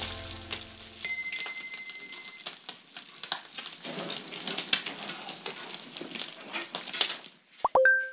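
Meat sizzling and crackling steadily on a hot flat-top griddle. The sizzling stops shortly before the end, and a short bright ding follows.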